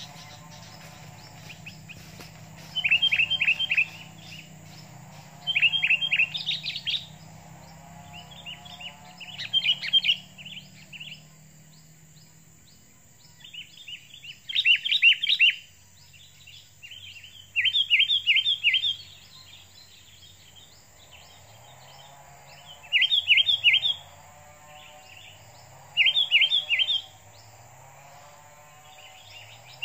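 Sooty-headed bulbuls calling in short bursts of rapid, sharp chirps, repeated every few seconds.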